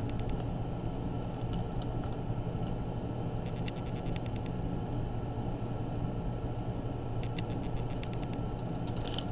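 Short runs of faint, rapid ticking, three or four times, from a small precision screwdriver turning out laptop screws and the tiny screws being handled, over a steady low hum. A single sharper click comes near the end.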